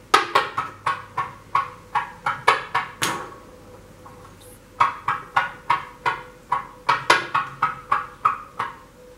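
A wooden fidget stick with steel-weighted tips tumbling end over end along a hard countertop, clicking each time an end lands, about three to four clicks a second. The clicking stops for about a second and a half, then starts again when the stick is set rolling once more.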